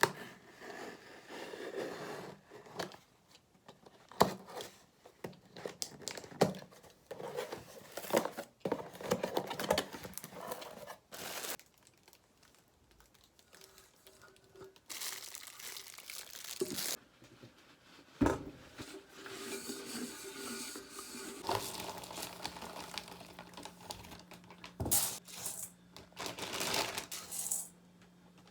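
Rustling and crinkling of packaging being handled, with scattered clicks and knocks from objects being picked up and set down.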